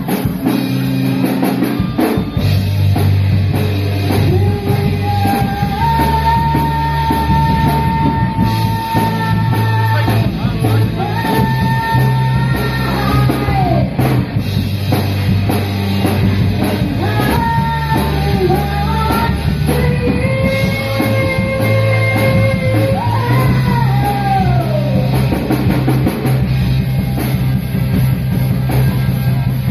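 Rock band playing live: drum kit and bass guitar under a lead melody of long held notes that bend downward as they end.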